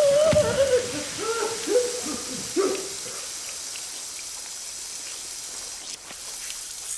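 A loud, drawn-out shout that breaks off about three seconds in, followed by a steady hissing gush: a film sound effect of blood spraying from a severed neck.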